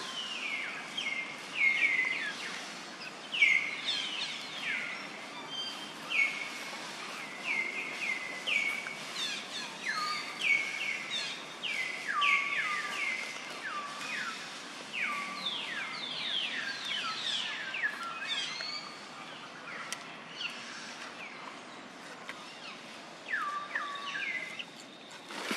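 Birds calling: a busy stream of short, high chirps that each slide downward, often several a second and overlapping, over a soft outdoor hiss.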